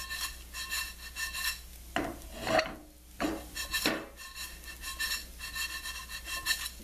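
Wooden spoon scraping and stirring panko breadcrumbs around a nonstick skillet as they toast golden brown in butter: a steady run of scraping strokes, with a few louder scrapes around the middle.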